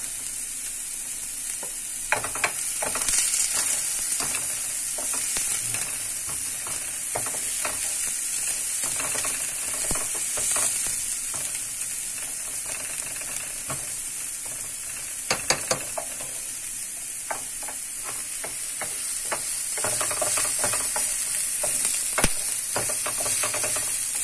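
A spatula scraping and stirring dry flour in a metal pot, with frequent light scrapes and a few sharper taps against the pot, as the flour is toasted dry for a béchamel. Under it runs a steady sizzle of chopped onion and garlic frying in oil in a pan.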